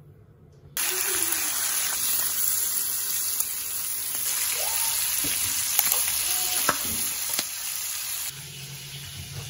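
Bacon strips sizzling in a frying pan, starting about a second in, with a few sharp clicks. The sizzle gets quieter near the end.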